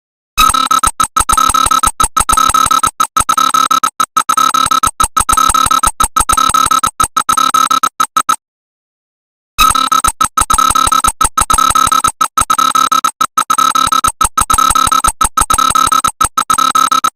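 Emergency alert system alarm: a loud, high electronic tone sounding in rapid pulses, in two long runs of about eight seconds, each broken off by about a second of silence.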